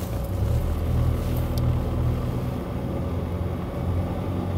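Sailing yacht's inboard diesel engine running in reverse at low revs to stop the boat, a steady low drone.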